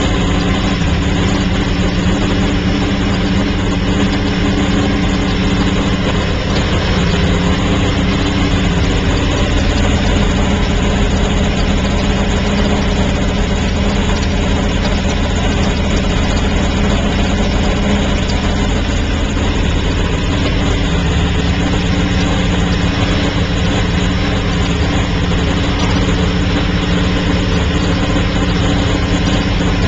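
Porsche 917's air-cooled flat-twelve racing engine running steadily at a loud idle, with no revving.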